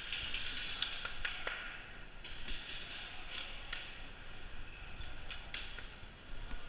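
Airsoft game sounds: scattered sharp clicks and taps of shots and BBs striking hard surfaces, over a steady hiss, with a cluster of them about a second in and another around five seconds.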